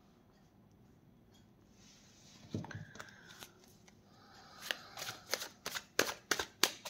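Deck of tarot cards being handled and shuffled: a quick run of sharp card snaps over the last two seconds. Before that it is nearly silent, apart from a soft knock about two and a half seconds in.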